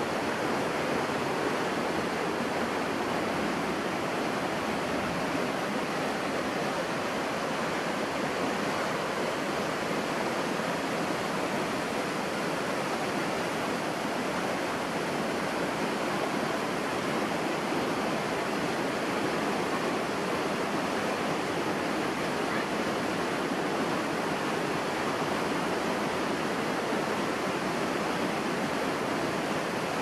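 Rushing water of a rocky mountain stream and waterfall: a steady, even rush of white water pouring over boulders, unchanging throughout.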